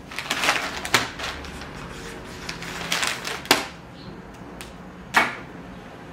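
Handling sounds at a wooden counter: pen and paper scratching and rustling, with three sharp knocks about one, three and a half, and five seconds in.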